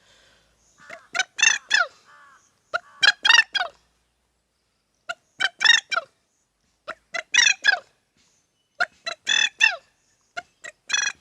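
A man imitating a bird's calls with his voice: about six bouts of quick, harsh, fowl-like calls, each bout a string of short notes, separated by brief pauses.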